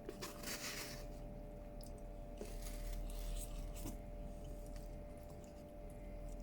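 A person chewing crispy shredded chicken, with a few short crunchy, scraping noises over a faint steady hum.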